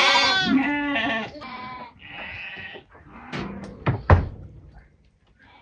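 Sheep and lambs bleating, several overlapping calls in the first two seconds, then a sharp loud knock about four seconds in.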